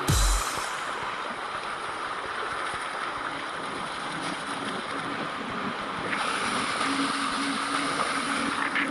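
Steady noise of wind on an action camera's microphone and water hissing under a kiteboard while it rides. There is a brief low thump right at the start.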